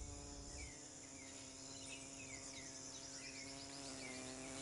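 Faint nature ambience: a steady insect buzz, short falling bird chirps repeating about every half second, and a steady high insect trill.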